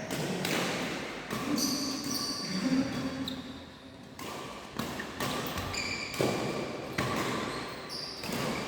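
Badminton play in a sports hall: sharp racket strikes on the shuttlecock and footfalls at irregular intervals about a second apart, with short high squeaks and some voices in between.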